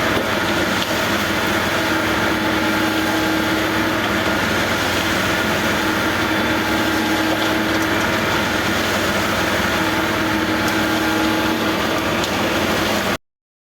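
Heavy construction machinery engine running steadily with a constant hum, which cuts off suddenly near the end.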